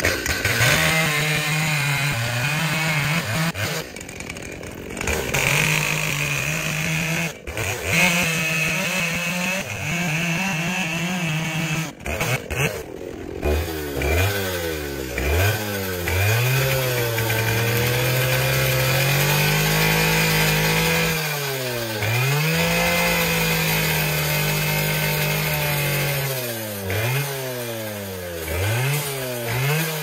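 Gas chainsaw cutting through a large log. For the first half it runs at a steady high pitch, with brief sags under load. In the second half its pitch repeatedly falls toward idle and climbs back to full revs as the throttle is let off and opened again.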